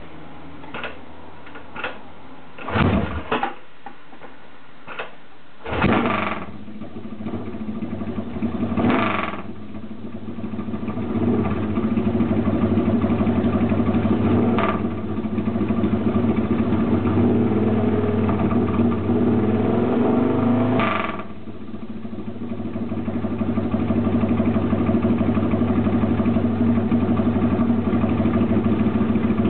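Yamaha XS650B parallel-twin motorcycle engine being started: a few loud bursts and sputters, then it catches about ten seconds in and runs steadily. The throttle is held up and varied, easing off briefly about two-thirds through before the revs rise again.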